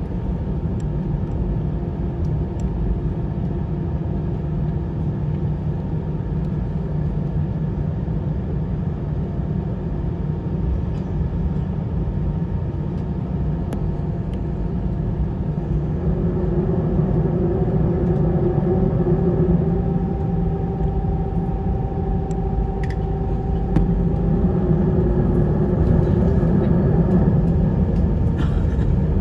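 Airbus A319 taxiing, heard from inside the passenger cabin: a steady low rumble from the engines and rolling gear, with a few steady engine tones. About halfway through, one whine rises slightly in pitch and the sound grows a little louder.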